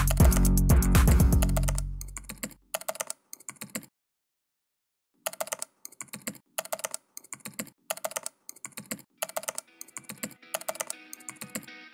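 Keyboard typing sound effect: a run of evenly spaced key clicks, about two to three a second, with a pause of about a second partway through. Background music fades out at the start and guitar music comes in near the end.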